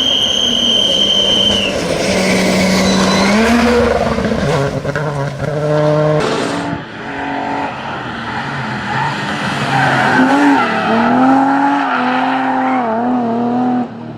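Rally cars driven flat out on a stage: engines revving high and dropping back again and again through gear changes and lifts. A steady high squeal sounds in the first second or two.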